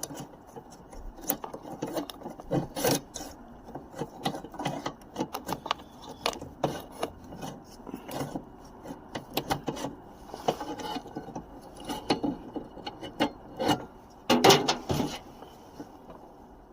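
Irregular scraping, rubbing and clicking of small hard parts being handled, with a louder flurry of scrapes near the end.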